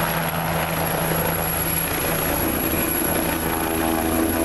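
Air ambulance helicopter lifting off and climbing, its rotor and turbine engines running steadily, with a constant blade beat under the engine noise.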